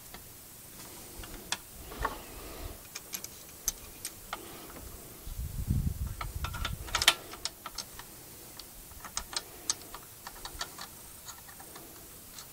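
Scattered light clicks and taps of metal parts and tools being handled while a two-stroke generator's exhaust is reassembled. A low rumble comes about five seconds in and ends in a sharper knock about seven seconds in.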